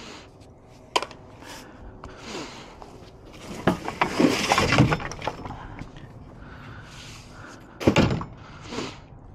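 Debris being pulled and shifted by hand from a pile of broken wood, hoses and plastic pots: a knock about a second in, a run of clattering and scraping around four to five seconds, and a sharp knock near eight seconds.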